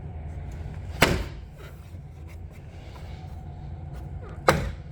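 Two sharp thumps, about three and a half seconds apart: a hand punching the plastic push clips of a first-generation Honda CRX door panel home into their holes in the door.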